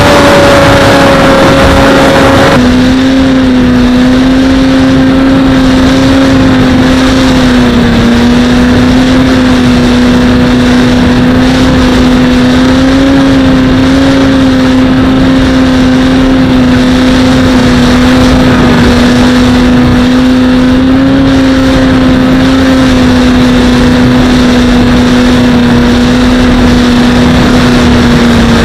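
Skyhunter FPV plane's electric pusher motor and propeller in flight: a loud, steady whine that wavers slightly, over wind rush on the microphone. The tone steps down a little about two and a half seconds in.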